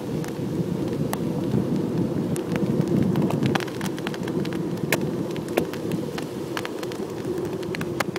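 Kite buggy's wide treaded tyres rolling over a beach covered in shells: a steady low rumble with many sharp, irregular crunching clicks as shells crack under the wheels.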